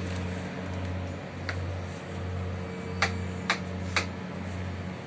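Kitchen knife chopping a small bottle gourd (upo) on a plastic cutting board: four sharp taps, one early and then three about half a second apart, over a steady low hum.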